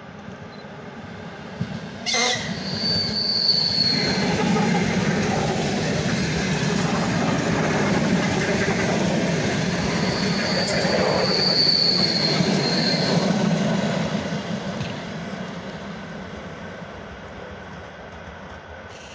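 Eight-car ER9M electric multiple unit passing close at speed. The rumble and wheel clatter build over the first few seconds and stay loud for about ten seconds as the cars go by, then fade as the train runs off. A high squeal comes in twice, a second or two each, near the start and around the middle.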